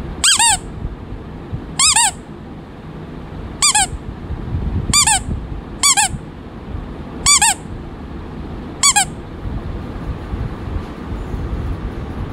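Squeaky rubber toy ball squeezed again and again: seven short, high squeaks, each dropping in pitch, spaced one to two seconds apart over about nine seconds.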